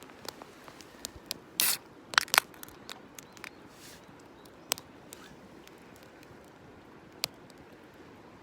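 Wood campfire crackling: scattered sharp pops over a faint hiss, with two short louder bursts of crackle or scraping about one and a half and two seconds in.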